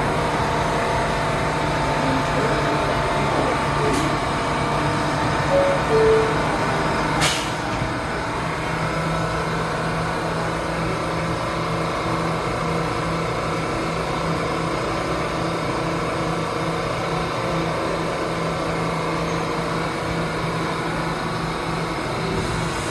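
Steady hum of a subway station platform, a low drone with a few fixed tones over it. Just under six seconds in come two short tones, the second lower than the first, and then a sharp click.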